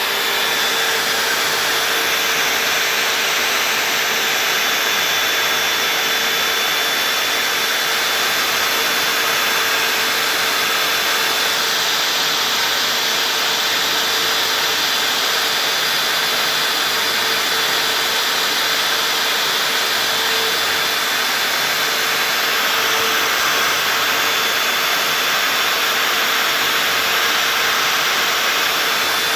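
CNC router spindle running steadily as its bit carves lettering into a white-faced MDF board: a constant rushing hiss with a steady whine.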